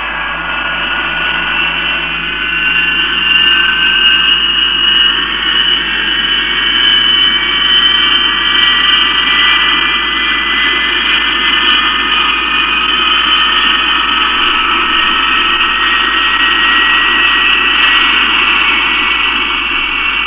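Rolls-Royce Avon turbojet of the BAC 221 (rebuilt Fairey Delta 2) running on the ground: a steady jet whine of several high tones over a rushing noise, growing louder and rising a little in pitch over the first few seconds, then holding steady.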